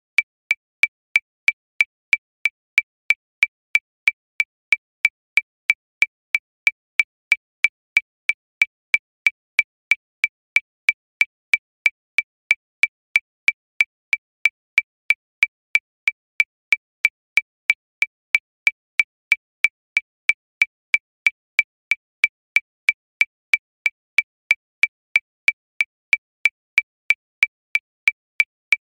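Metronome clicking steadily at 185 beats per minute, about three short, high-pitched clicks a second, all alike with no accented beat.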